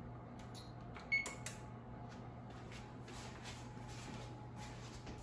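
Wall oven's keypad being pressed to set it to preheat: a few soft button clicks and one short, high beep about a second in, over a steady low hum.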